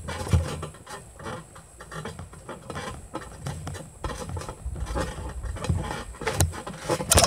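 Irregular low thumps and rustling of a phone being handled and jostled, with a couple of sharper knocks near the end.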